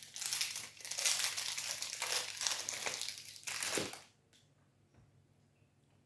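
Plastic protein bar wrapper crinkling as it is handled, for about four seconds, then it stops.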